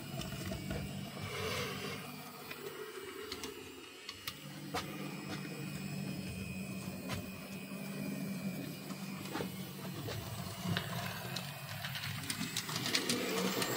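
Tillig TT-scale BR 23.10 model steam locomotive running along the track: a quiet, steady hum from its electric motor and gear drive, with scattered small clicks from the wheels on the rails. The hum drops away briefly about three to four seconds in, then returns.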